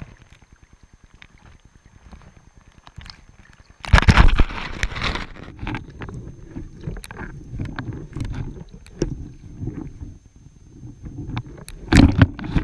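River water sloshing and splashing around a half-submerged camera, with muffled underwater rumbling. It starts suddenly and loudly about four seconds in, stays unsteady, and surges again near the end.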